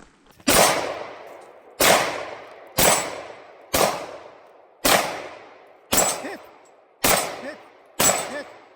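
Eight gunshots fired at a steady pace of about one a second, each report trailing off in a long echo before the next.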